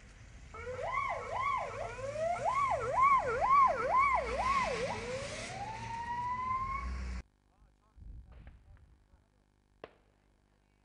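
Emergency-vehicle siren wailing in fast up-and-down sweeps, about two a second, then rising in one long slow glide before cutting off suddenly about seven seconds in. A low traffic rumble sits beneath it.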